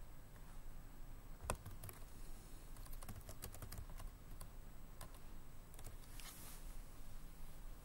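Typing on a ThinkPad L440 laptop keyboard: irregular key clicks, one sharper keystroke about a second and a half in and a quick run of keystrokes around three to four seconds in. A brief soft hiss follows about six seconds in.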